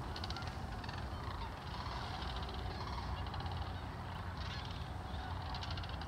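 A large flock of sandhill cranes calling, many rolling, rattling bugles overlapping continuously, over a steady low rumble.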